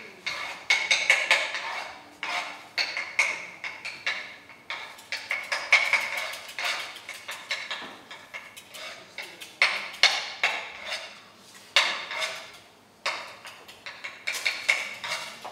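Irregular sharp clattering strikes, like a utensil hitting a bowl, each with a short ringing tone. They come in quick flurries, with a pause about halfway through, then single strikes a second or so apart.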